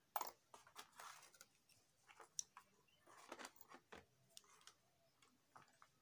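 Handling noise as multimeter test probes and their leads are picked up over cardboard: a run of irregular light clicks, taps and rustles, the sharpest about a quarter second in, thinning out towards the end.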